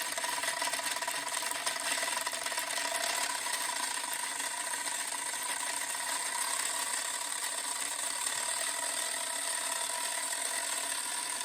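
3D printed plastic gear train driven by a 350-watt DC motor, spinning at high speed: a steady whine with a fast, dense gear-mesh chatter.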